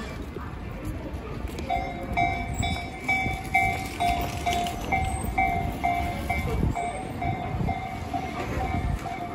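Japanese railway level-crossing alarm ringing, a fixed-pitch electronic ding repeating about twice a second, starting a couple of seconds in over low street noise.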